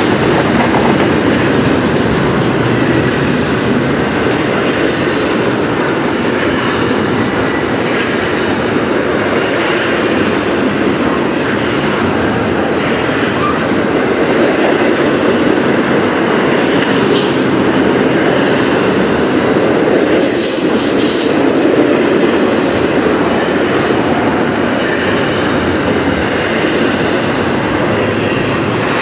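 Union Pacific double-stack container train rolling past close by: a steady, loud rumble and clatter of steel wheels on rail, with brief high-pitched wheel squeals a little past halfway.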